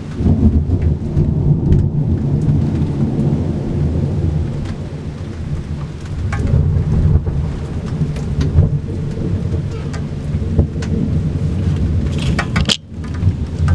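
Thunder rumbling over steady rain. The rumble begins suddenly, rolls on with swells for most of the stretch, and breaks off briefly near the end before returning.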